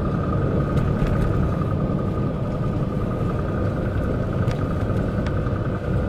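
Cab noise of a MAN concrete mixer truck on the move: a steady low engine and road rumble with a thin, steady whine above it and a few faint clicks.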